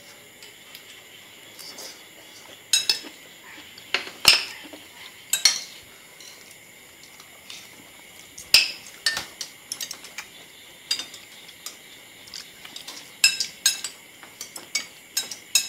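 Metal spoons and chopsticks clinking and scraping against ceramic plates and bowls during a shared meal, in scattered irregular taps, the loudest about four and eight and a half seconds in.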